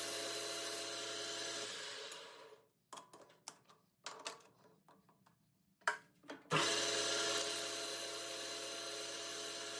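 Metal lathe running with a steady hum, then spinning down to a stop about two seconds in. A few light clicks and knocks follow in the quiet, then the lathe starts up abruptly about six and a half seconds in and runs steady again.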